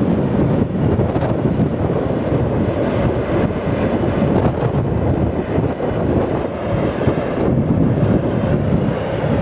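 Freight train of tank wagons rolling past on the far track: a steady rumble of wheels on rail.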